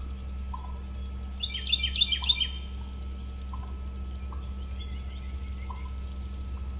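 Bird calls: a quick cluster of loud, high chirping notes about a second and a half in, then softer high chirps near the end. Short, quieter chips repeat about once a second throughout, over a steady low hum.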